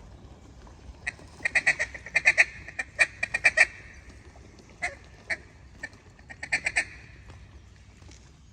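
Loud runs of short, nasal mallard-style quacks: a quick series of about a dozen notes over the first few seconds, a few single quacks, then a shorter quick run of about five near the end.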